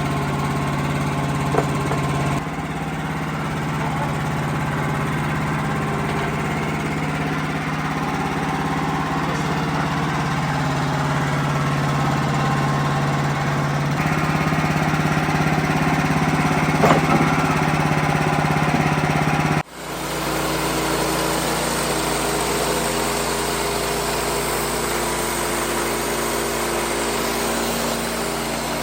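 Wood-Mizer LX55 portable sawmill's engine running steadily with a pitched hum that shifts a couple of times. About two-thirds through it breaks off abruptly and comes straight back with a different, lower note.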